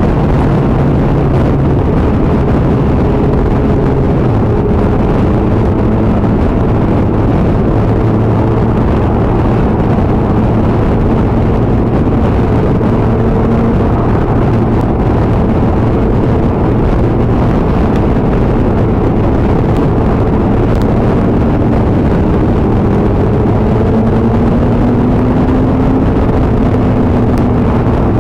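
Motorcycle cruising at steady speed: a steady engine hum under heavy wind and road rush. The engine note drops slightly about four seconds in.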